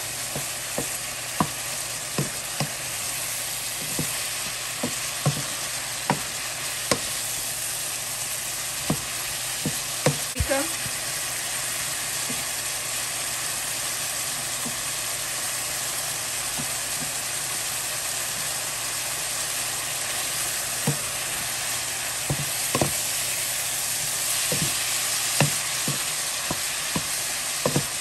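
Beef liver chunks sizzling steadily in hot oil in a frying pan while a wooden spoon stirs them, knocking against the pan now and then. The knocks come in a cluster at first, thin out in the middle, and pick up again near the end.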